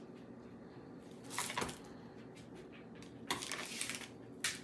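Biscuits being torn and crumbled apart by hand, soft crumbly rustles in a few short bursts about a second and a half, three and a half and four and a half seconds in, over a low steady room hum.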